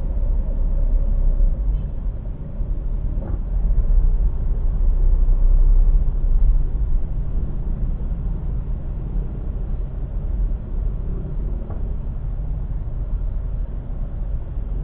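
Low, steady rumble of engine and road noise heard from inside a car creeping along in slow, heavy traffic.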